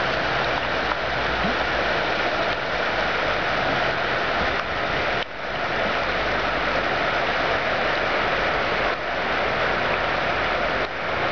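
Steady rushing noise of rain and fast-flowing floodwater, with a brief dip about five seconds in.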